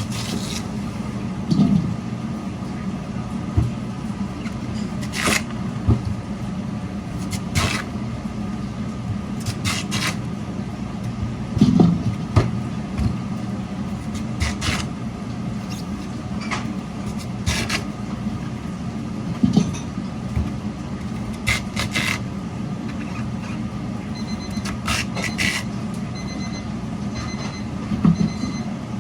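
Industrial radish-slicing food machine running with a steady motor hum, with irregular clacks and knocks every second or two as the radishes are cut.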